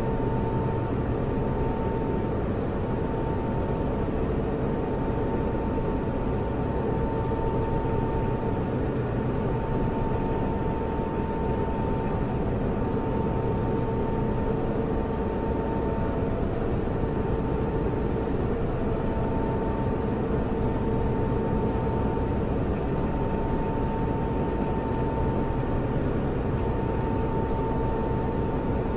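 Computer server running: a steady hum and hiss of cooling fans, with two faint constant tones, one higher than the other.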